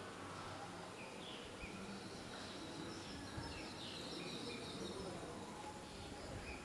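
Faint outdoor ambience with small birds chirping now and then, the chirps crowding into a brief run of twittering in the middle.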